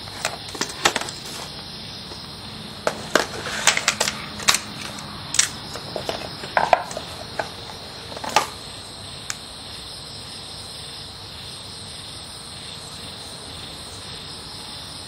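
Oracle cards handled and shuffled while one card is drawn from the deck: a run of sharp clicks, taps and flicks over the first nine seconds or so. Crickets chirr steadily in the background throughout.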